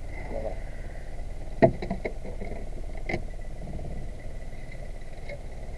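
Sharp knocks of fishing gear against a small boat's hull as a hand-hauled line with a plastic-bottle float is brought aboard: one loud knock about one and a half seconds in, then a few lighter ones up to about three seconds in, over a steady low rumble.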